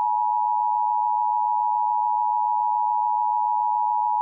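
Emergency Alert System attention signal: a steady two-tone alert tone near 900 Hz, held without a break, announcing a child abduction emergency (Amber Alert).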